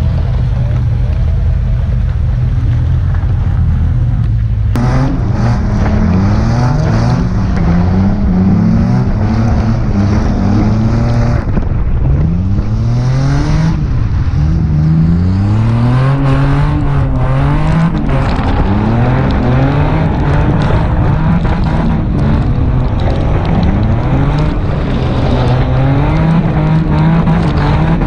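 Nissan 350Z drift car's engine revving, fairly steady for the first few seconds and then climbing and dropping in pitch every second or two as the car slides, over the hiss of tyres on wet pavement.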